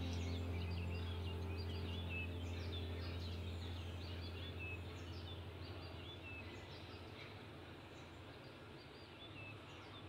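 Budgerigars chirping with short, quiet twitters throughout. Under them a low sustained music note fades out gradually.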